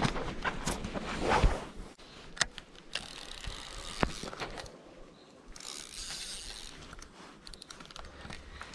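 Fishing reel's ratchet clicking irregularly, with knocks from the rod being handled, as a hooked carp takes line. The clicking is busiest and loudest in the first two seconds.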